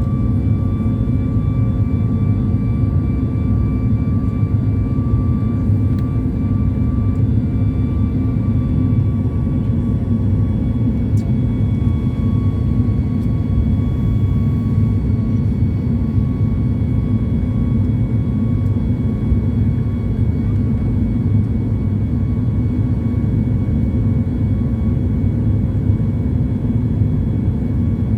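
Steady, loud, low engine-like drone with faint steady whines above it, unchanging throughout.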